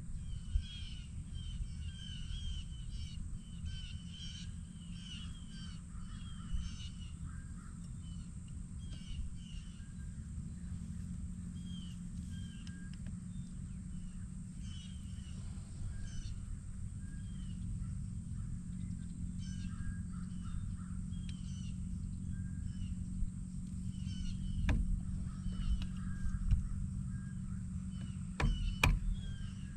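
Birds calling over and over in short harsh notes, over a steady low rumble. A few sharp clicks or knocks come near the end.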